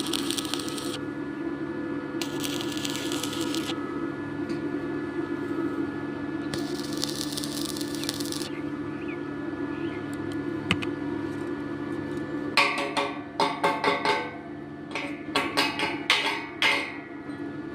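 Welding machine humming steadily, with three short bursts of sizzling arc crackle from a stick welder striking and running short beads on steel. Later comes a quick run of metallic knocks and clinks with ringing, as when slag is chipped off the weld.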